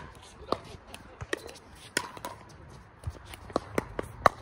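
Pickleball rally: paddles striking the hollow plastic ball with sharp pops, first about one every half second to second, then a quick run of four hits near the end as the players volley at the net.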